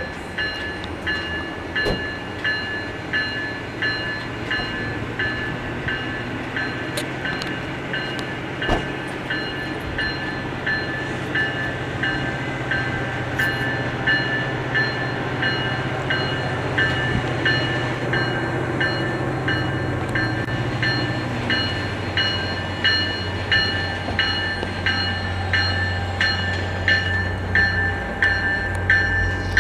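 Locomotive bell on an F40PH-3C diesel ringing about twice a second as the commuter train slowly approaches, growing louder as it nears, over the low rumble of the diesel engine.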